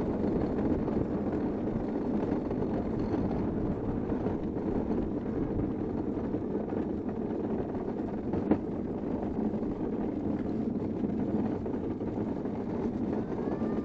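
Unpowered gravity kart rolling downhill on an asphalt track: a steady rumble of the wheels on the road and rattling of the kart, mixed with wind on the microphone. A single sharp knock comes about eight and a half seconds in.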